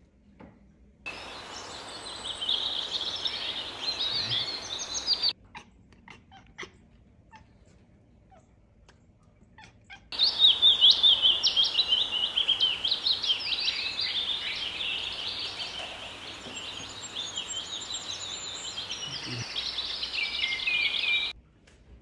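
Small birds chirping and twittering in a busy, overlapping chorus, in two stretches that each start and stop abruptly, with a few seconds of near quiet and faint ticks between them.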